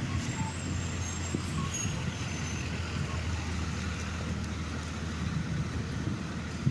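City street traffic: a steady low rumble of vehicle engines running close by.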